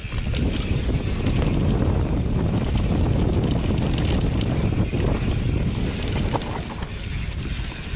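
Wind buffeting the microphone while mountain bike tyres roll fast over a dirt trail, with scattered light clicks and rattles.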